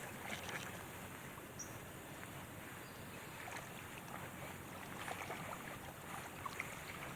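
Faint water lapping and splashing, with scattered small ticks and splashes over a low, steady wash.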